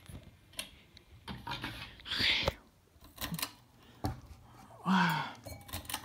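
Several sharp clicks and short rattles from a Hampton Bay ceiling fan's pull-chain switches being pulled as the light kit comes on, with handling rustle between them.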